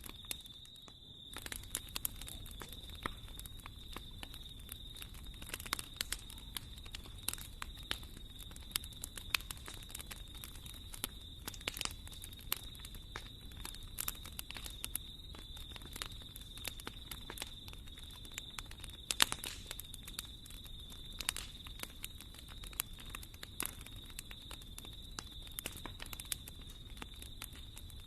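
Wood fire burning in a fireplace, crackling with frequent irregular pops and snaps over a low rumble, one sharper pop about two-thirds of the way through. A faint steady high whine runs underneath.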